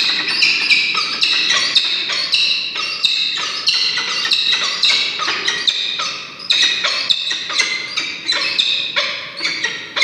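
Adult peregrine falcons calling over and over during a courtship display at the nest ledge: a rapid run of high, repeated calls, several a second, with a short break a little past the middle.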